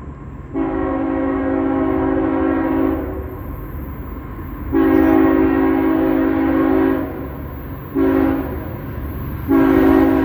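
Freight locomotive's multi-chime air horn sounding the grade-crossing signal: two long blasts, a short one, then a long one that is still sounding at the end. A steady low rumble of the approaching train runs underneath.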